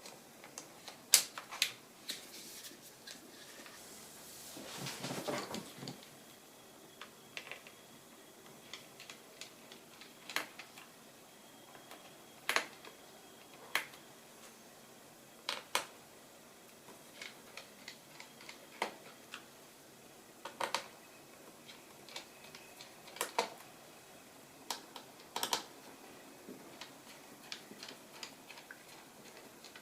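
Scattered sharp clicks and taps of a ThinkPad X240 laptop's plastic case and small parts being handled and worked with a tool during disassembly, a few seconds apart. There is a brief scraping noise about five seconds in.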